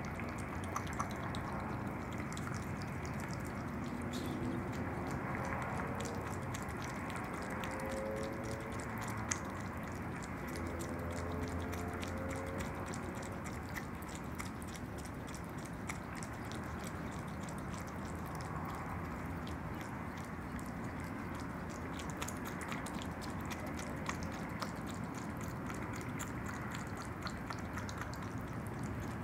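An opossum eating yogurt: steady wet chewing, with many small clicks of its mouth.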